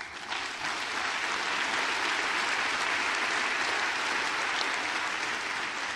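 Large audience applauding, rising quickly at the start, then holding steady and easing off slightly near the end.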